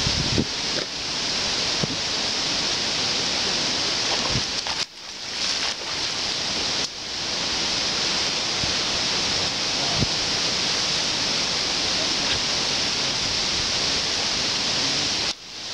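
Steady rushing hiss of a shallow creek running over riffles, mixed with wind, with a few soft low thumps of wind on the microphone. The noise briefly drops out about a third of the way in and again just before the end.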